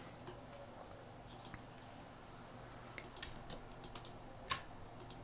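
Faint clicks of a computer mouse: a couple about a second in, a quick run of clicks between three and four seconds, and a sharper single click near the end, as items are selected and a right-click menu is opened.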